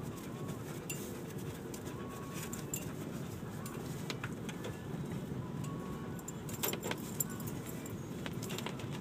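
A steady low rumble with scattered light jingling clinks, which come thickest about seven seconds in.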